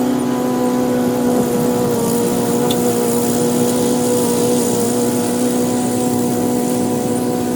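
Toro Smart Stow self-propelled gas push mower's engine running at a steady speed.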